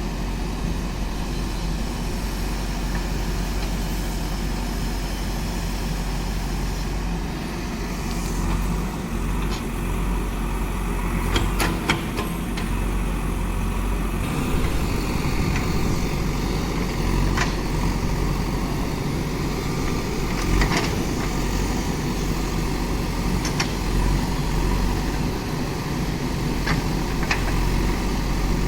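Diesel engine of a JCB backhoe loader running steadily, with a few sharp knocks at irregular intervals.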